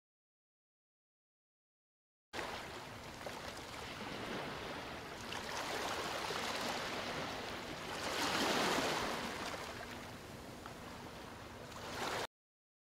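Ocean waves washing, starting about two seconds in as a soft, steady rush of surf that swells a little past the middle and cuts off abruptly near the end.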